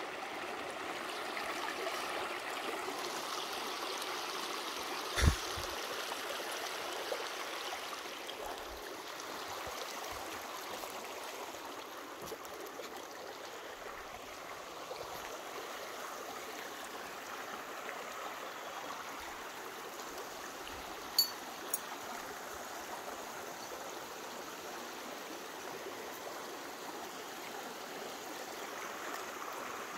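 Shallow rocky forest creek running steadily over stones. A single sharp knock about five seconds in, and two faint clicks later on.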